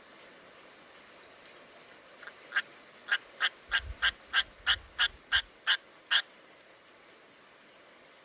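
An animal calling about a dozen times in quick succession, short sharp calls roughly three a second, over a faint steady hiss of rain.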